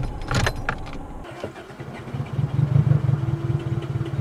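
A few clicks in the first second, then from about two seconds in the 1998 Chevy Prism's four-cylinder engine being cranked by the starter in a steady, rapidly pulsing churn without catching. The engine has died after being run with chocolate milk in place of oil, and the owner takes it to be clogged.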